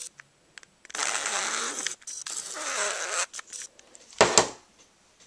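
Nikon Coolpix S3000 zoom lens barrel grinding and rasping in two bursts as its motor strains to move it: sand is caught in the lens mechanism. About four seconds in come two sharp knocks on the table, the loudest sounds.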